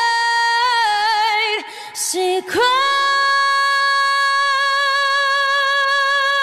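A woman's voice singing a cappella: a held note that wavers, a quick breath about two seconds in, then one long high note with vibrato.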